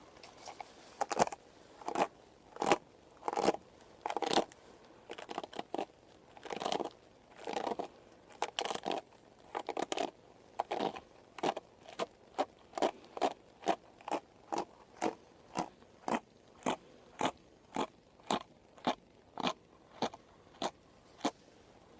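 Haircut sounds close to the microphone: a series of short crisp strokes on hair, uneven and spaced out at first, then falling into a steady rhythm of about two a second in the second half.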